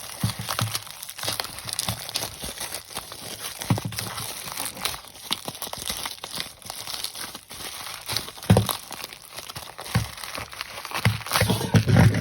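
Plastic packing wrap crinkling and rustling as it is pulled and peeled off a built Lego model by hand, with a few dull knocks from the model being handled, the loudest near the end.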